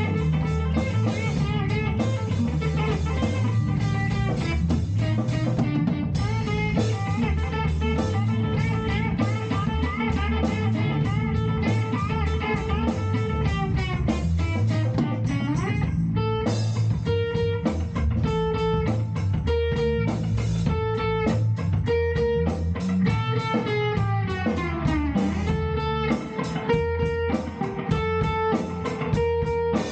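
Band playing an instrumental passage led by electric guitar. About halfway through, and again near the end, a note slides down in pitch. From the middle on, a short note repeats in a steady chopped rhythm.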